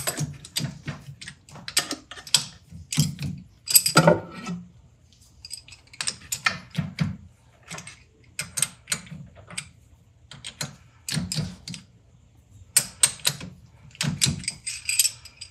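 Irregular metallic clicks and clinks of a lathe chuck being mounted and locked onto its D1 camlock spindle nose, the locks tightened one after another in opposite order.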